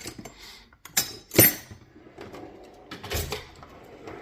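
Metal hand tools clinking and knocking in a steel toolbox drawer: a few sharp clinks, the loudest about a second and a half in, then a duller knock around three seconds.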